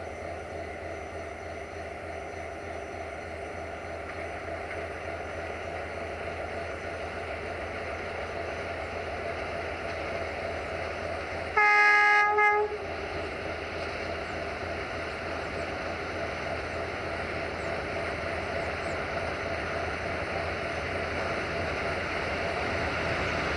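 Electroputere 060-DA (LDE2100) diesel-electric locomotive's Sulzer engine running steadily and growing louder as it approaches hauling a freight train, with one horn blast about a second long a little before halfway.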